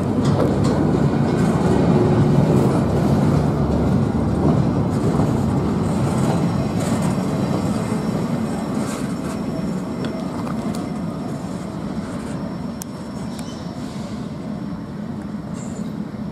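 Freight train rolling past on the rails: a steady rumble of the cars with faint wheel clicks, slowly fading.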